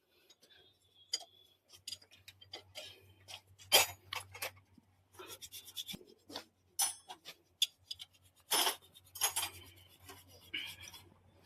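Scattered light clicks, taps and small metallic clinks of workshop handling, irregular and unevenly loud, with the two sharpest knocks about four and eight and a half seconds in. A faint steady low hum runs underneath.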